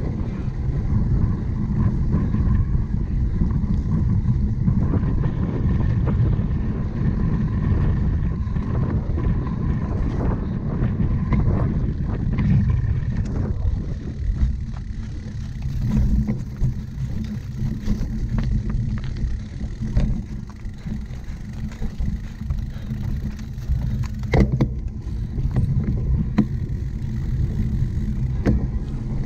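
Wind rumbling on the microphone as a cyclocross bike is ridden hard, with the bike rattling over rough ground and a few sharp knocks in the second half.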